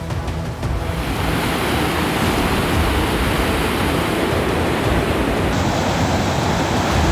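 Rushing floodwater: a loud, steady noise of churning water that builds about a second in, with a low rumble beneath it.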